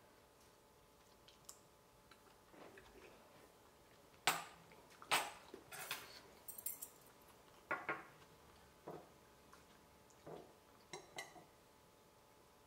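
Eating utensils clinking and tapping against ceramic bowls: a quiet start, then a run of sharp clinks from about four to eleven seconds in, the loudest near the beginning of the run.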